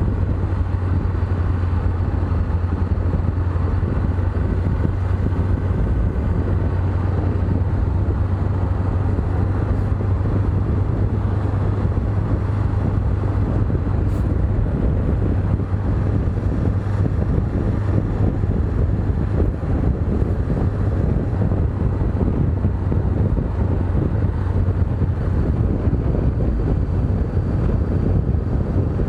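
Honda CB500X's parallel-twin engine running at a steady speed while riding, a steady low drone under rushing wind on the microphone.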